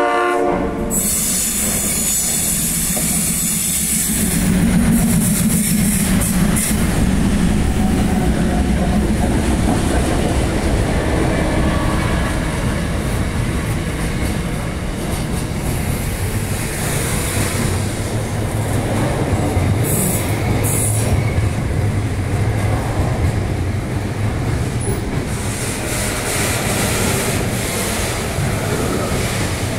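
Diesel-hauled container freight train passing close by. A short horn sounds at the very start, then the locomotive engines throb past, followed by the steady rumble and clatter of the container wagons' wheels on the rails.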